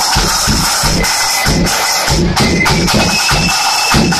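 Marching flute band playing loudly: a tune on the flutes over fast, dense snare drumming and a bass drum beat.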